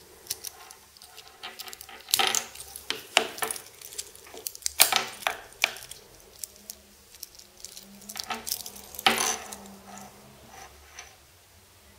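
Metal watch bracelet and case clinking and rattling as the watch is handled, in irregular small clicks and short scrapes, a few louder around two, five and nine seconds in.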